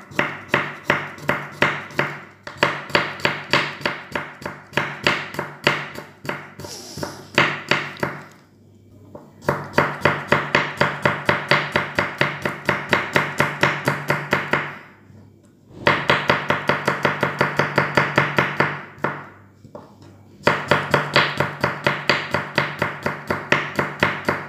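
A kitchen knife slicing garlic cloves on a wooden cutting board: quick, even knocks of the blade on the board, about four a second, with three short pauses.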